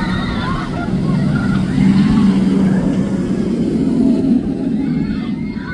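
Fury 325, a Bolliger & Mabillard giga steel roller coaster, its train running along the track overhead with a loud, steady low rumble that swells about two seconds in and eases a little near the end.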